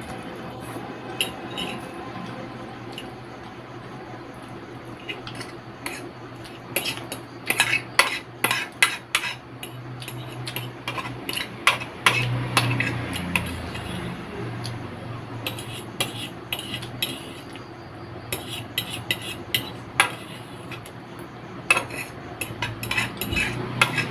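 Metal fork scraping and clinking on a plate, gathering up the last noodles, with sharp clinks coming in irregular clusters.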